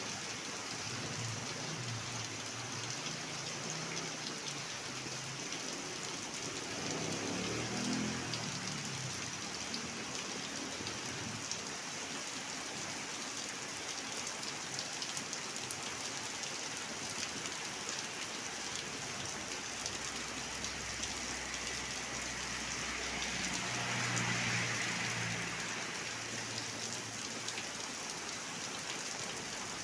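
Steady rain falling, a dense even patter of drops. A low rumble swells briefly a couple of times, around eight seconds in and again near twenty-four seconds.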